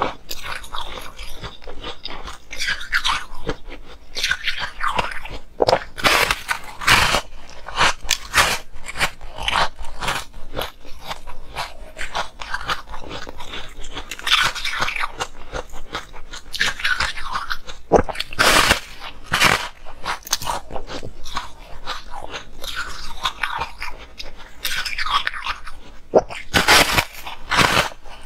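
Bites into a large frozen ice disc, each a sharp crunch, followed by crackly chewing of the ice, repeated again and again.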